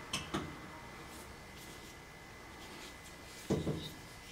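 Handling noise from a Ruger Wrangler single-action .22 revolver turned over in the hands: two light clicks near the start, then a duller knock about three and a half seconds in.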